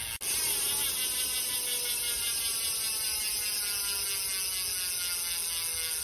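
Hope Pro 4 rear hub freewheeling as the spun rear wheel coasts, its pawls clicking so fast they blend into a steady low buzz. The buzz slowly drops in pitch as the wheel slows.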